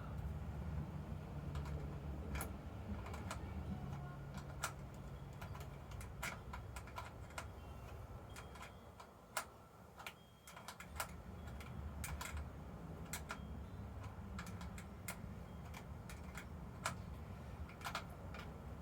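Scattered light clicks and taps of small tools and parts being handled, at an uneven pace, over a steady low hum that drops away briefly about halfway through.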